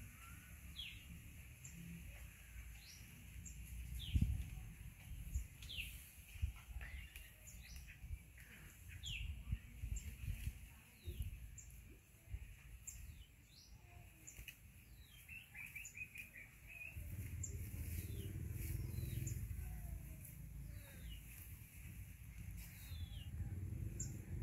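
Small birds chirping over and over, short quick downward-sliding chirps, over a steady high hiss. A single low thump about four seconds in, and a low rumble comes in about two-thirds of the way through.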